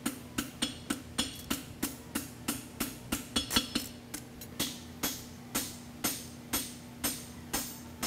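Hand hammer striking a handled creaser held in the nail groove of a red-hot concave steel horseshoe on the anvil. Steady, evenly spaced blows, about three a second at first and slowing to about two a second, each with a short metallic ring over a steady ring from the anvil.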